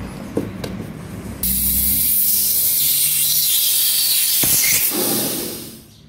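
Refrigerant gas hissing out of a refrigerator's copper refrigeration line as it is opened with a tube cutter, venting the system's charge before brazing. The hiss starts suddenly about a second and a half in, runs steadily, and dies away near the end as the gas runs out.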